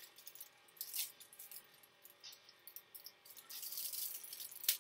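Crinkling and crackling of a chocolate bar's wrapper being handled, with a click about a second in, a denser stretch of crinkling later, and a sharp snap near the end.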